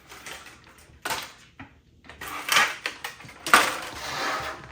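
Plastic toy packaging and capsules being handled, crinkling and clattering in several short bursts, the longest near the end.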